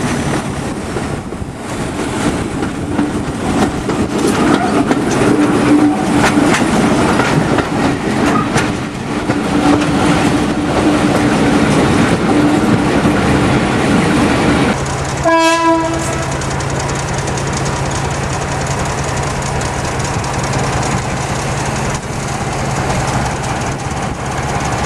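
Diesel shunter running under power with wheel and rail noise for about fifteen seconds. It then breaks off sharply, followed by a brief horn toot and the engine settling to a steady idle.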